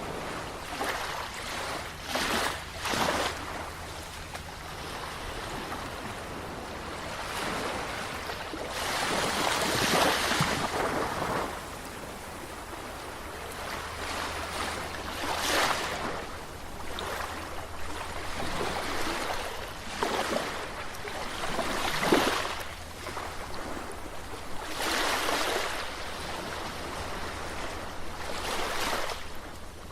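Sea waves breaking and washing ashore in irregular surges every few seconds, with two swells louder than the rest, one about ten seconds in and one about twenty-two seconds in.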